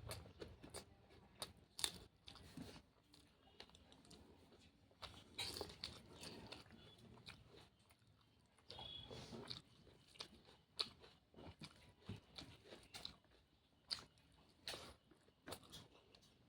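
Faint close-up eating sounds: a person chewing a cooked jackfruit curry, with scattered sharp mouth clicks and smacks and a few longer stretches of chewing.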